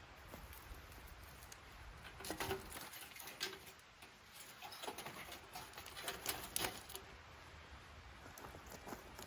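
Kindling twigs snapping and crackling as a small campfire is got going: a scattering of sharp, faint clicks, busiest in the middle.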